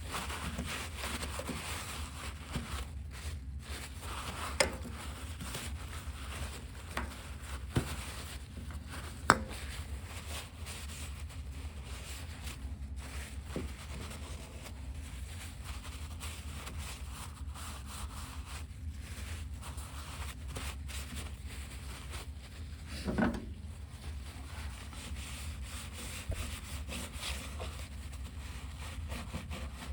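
Hand scrubbing and wiping with a brush and paper, cleaning dirt off the fuel tanks. There are a few sharp knocks in the first ten seconds and a louder clatter past the middle.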